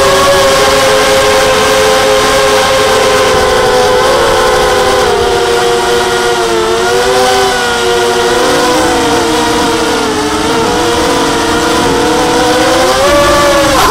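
FPV miniquad's four brushless motors and propellers whining, heard from a camera on board. The several pitches rise, fall and drift apart as the throttle changes.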